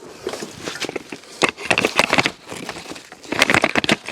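Hand tools clicking and clattering against metal during work on a vehicle's rear shock mount: a run of quick sharp clicks in two bursts, about a second and a half in and again near the end.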